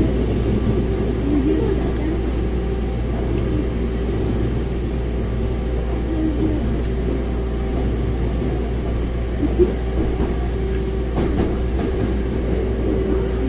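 Hankyu 1000 series electric train running at steady speed, heard from inside the car: a continuous low rumble of wheels on rail with a steady hum. There is one brief knock just under ten seconds in.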